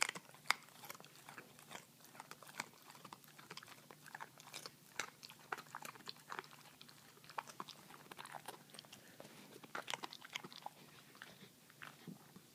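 Giant schnauzer chewing pieces of raw carrot, with irregular crisp crunches. The crunches are loudest just after the start and again around ten seconds in.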